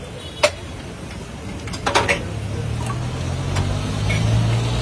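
Low, steady engine rumble of road traffic that grows louder toward the end, with a few sharp metallic clicks from steel utensils at a street griddle.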